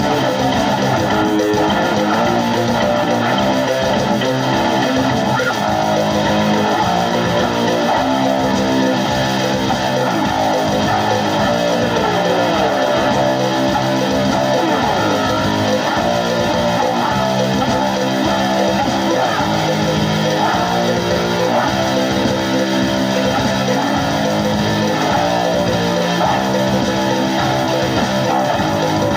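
Background music led by electric guitar with bass, a steady rock beat.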